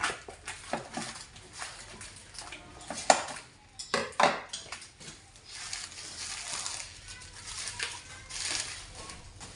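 Scissors snipping through plastic wrapping with a string of sharp metal clicks and knocks, the loudest about three seconds in. Then plastic wrap crinkles and rustles as it is pulled off by hand.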